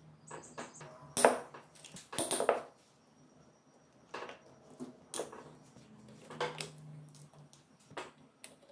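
A combination wrench clinking and scraping on steel bolts in a motorcycle engine's aluminium crankcase cover as the bolts are loosened and the cover is taken off. It comes as a series of sharp metal clinks and knocks, the loudest a little over a second in and again around two seconds.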